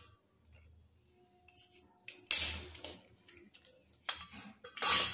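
Kangaroo-brand slate pencils clattering and clinking against each other and the concrete floor as a handful is scooped up, in a few short bursts: the loudest about two seconds in, another near the end.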